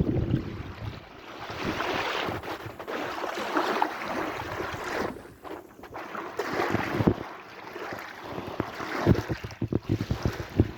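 Sea waves washing in rising and falling surges, with wind gusting on the microphone, strongest at the start, and a run of short sharp crackles near the end.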